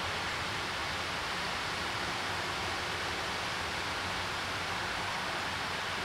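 Steady, even rush of flowing stream water, with no distinct calls or impacts.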